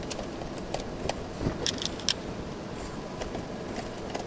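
Wire bundles and a plastic electronics housing being handled as wires are pushed into the box: light scattered clicks and rattles, with a few sharper clicks a little before halfway, over a steady low background noise.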